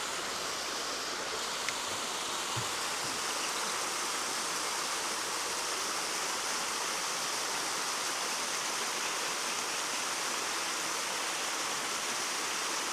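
Small waterfall on a stream, its water falling and splashing in a steady, even rush.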